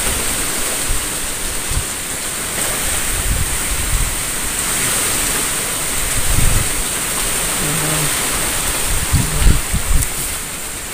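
Steady outdoor night noise: a continuous high-pitched insect drone over an even rushing hiss, with low thumps from the camera being jostled while walking through brush.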